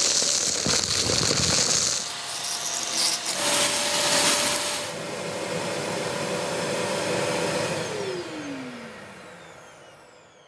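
Kärcher wet-and-dry vacuum running, a steady motor whine under a loud rush of air, with stretches of sharper hiss in the first seconds. About eight seconds in it is switched off: the whine falls in pitch as the motor winds down and the sound fades away.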